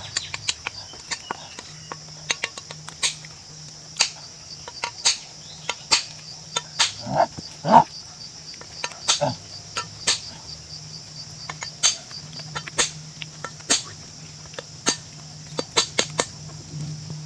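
Steady high-pitched insect drone, with sharp knocks at irregular intervals of about a second, and a couple of short rising calls about seven to eight seconds in.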